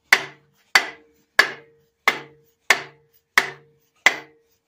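An orange mallet striking the helical timing gear on a Case 207D diesel engine's timing plate: seven evenly spaced blows, about one and a half a second, each with a short metallic ring, tapping the gear home onto its shaft.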